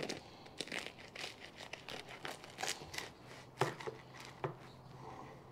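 Knife cutting through the crisp baked puff pastry crust of a burger pie: a run of irregular, crackly crunches and cuts.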